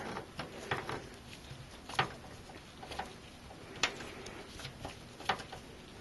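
Small metal clicks and taps of a screw and screwdriver at a graphics card's rear bracket in a PC case, as a bracket screw is being started and won't thread right. The clicks are scattered, with sharper ones about two, four and five seconds in, over faint handling rustle.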